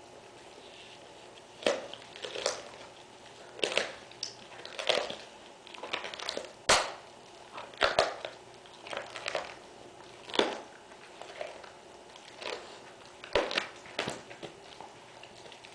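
Black Labrador chewing a raw lamb ribcage: irregular crunches of rib bone and meat every second or so, with a few sharp cracks.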